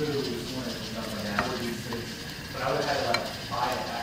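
Beaten egg sizzling in a square egg roll pan over a gas flame while chopsticks scrape and tap against the pan, rolling up the first layer of a Korean rolled omelette. There are a couple of sharp taps, and louder scraping near the end.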